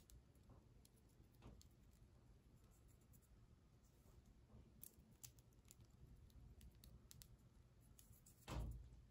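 Near silence, with faint scattered ticks from flaxseeds being sprinkled by hand onto the batter, and a single dull thump near the end.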